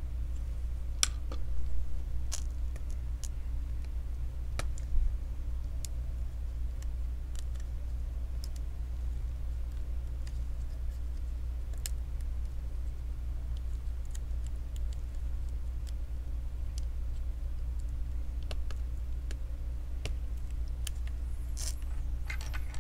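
Faint scattered clicks and taps of a small screwdriver and cable connectors being handled inside an opened laptop, over a steady low hum. A short rustle near the end.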